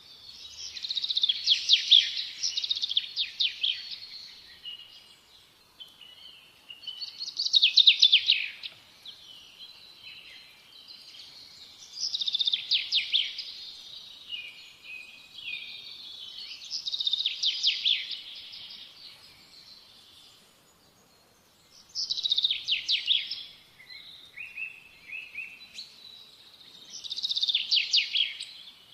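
A small songbird singing, repeating a short phrase of rapid high chirps and quick trills six times, roughly five seconds apart, with softer chirps in the gaps.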